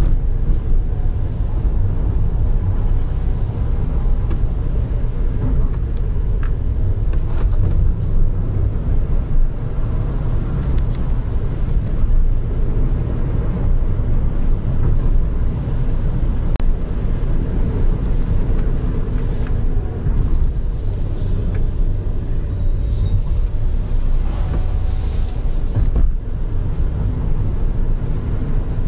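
Car on the move heard from inside the cabin: a steady low rumble of engine and tyre noise, with a few faint clicks and rattles.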